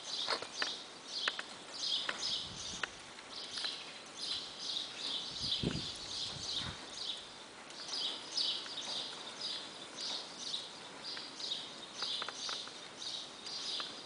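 A horse walks on arena sand with scattered soft hoof and tack clicks, under repeated high chirping.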